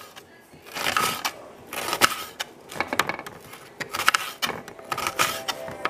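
Kitchen knife slicing through an onion on a cutting board, the blade striking the board in a series of irregular sharp knocks, about one or two a second.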